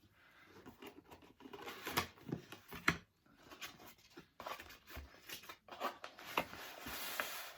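Scissors snipping at a toy's packaging, in irregular cuts, mixed with rustling and crinkling as the package is handled and pulled open, busiest near the end.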